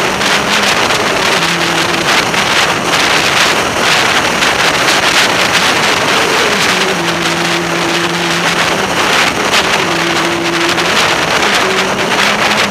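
Heavy wind rushing over the microphone of a motorcycle cruising at steady speed, with the engine's hum heard faintly at a steady pitch in short spells.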